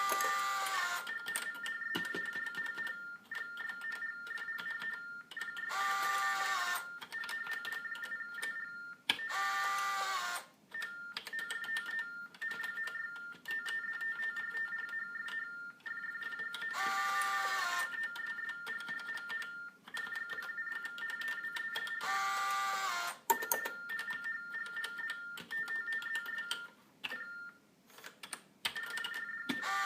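Telecommunications device for the deaf (TDD) sending Baudot tones: a fast warble between two steady high pitches. It is broken every few seconds by short chattering bursts from its small built-in printer, with scattered key clicks.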